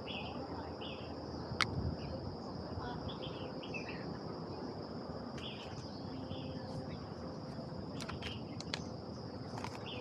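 Insects buzzing steadily at a high pitch, with short bird chirps scattered through, over a steady low background noise. A sharp click about a second and a half in.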